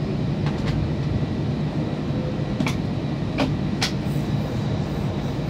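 Steady rumble of an Airbus A320's cabin while it taxis after landing, with three sharp clicks about halfway through.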